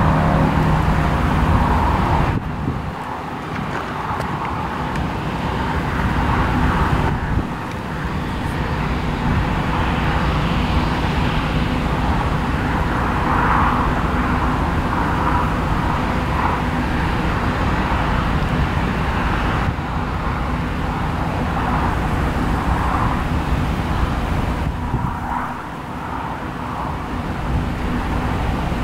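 Steady engine drone of a Claas Lexion 600 TT combine harvester at work, changing abruptly several times where shots are cut together.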